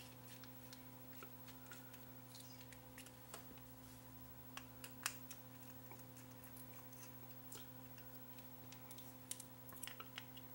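Faint, scattered clicks and taps of a small plastic housing and circuit board being handled and pried apart, the sharpest about five seconds in and several more near the end, over a steady low electrical hum.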